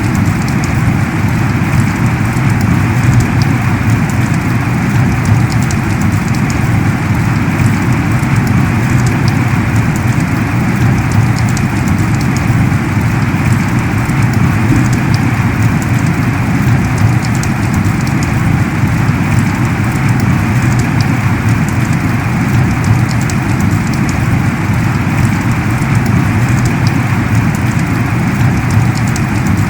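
Heavy rain pouring steadily: a dense, even hiss with a deep undertone and fine ticks of individual drops.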